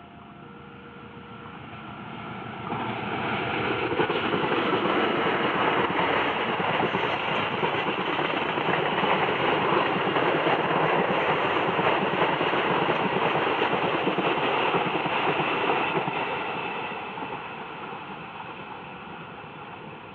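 A train passing close by: the rail and running noise swells over a couple of seconds, stays loud for about twelve seconds, then fades away. A few short two-pitch beeps sound in the first second or so.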